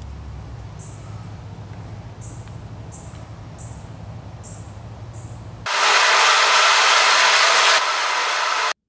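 Faint short insect chirps over a low hum, then, about six seconds in, a loud steady grinding hiss from a rotary floor maintainer stripping old peeling coating off a concrete floor, which cuts off just before the end.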